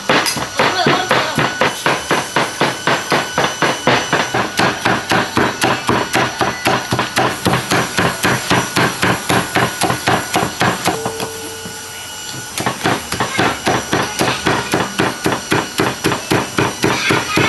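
Rapid, even knocking strikes, about four a second, with a pause of a second or so about two-thirds of the way through.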